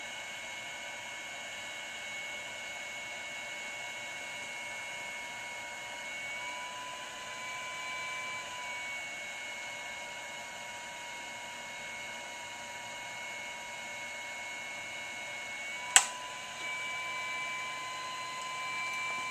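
Infrared BGA rework station running with a steady fan whine. A single sharp click about sixteen seconds in, as the infrared heating lamp cuts out.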